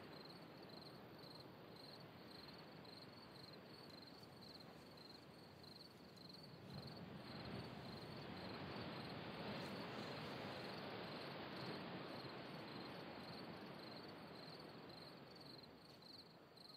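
Crickets chirping in a steady, evenly pulsing trill. A soft rushing noise swells up about a third of the way in and fades away near the end.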